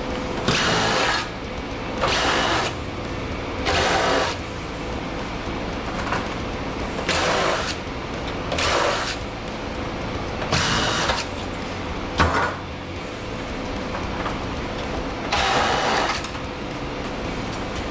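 Cordless power driver running in short bursts of about half a second to a second, seven times, backing screws out of electronic equipment during a teardown. There is a sharp click about twelve seconds in, and a faint steady hum underneath.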